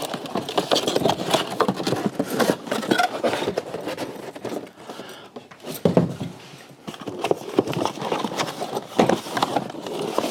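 Stroller parts and their plastic packaging being handled: a dense run of scrapes, clicks and rustles, with a louder knock about six seconds in.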